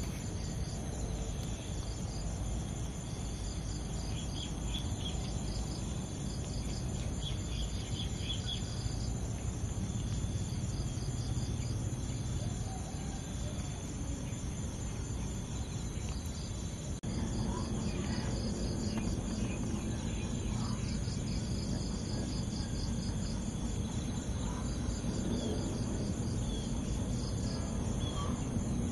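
Outdoor insect chorus: a steady, high, rapidly pulsing chirring that goes on without a break, over a low background hum of ambient noise.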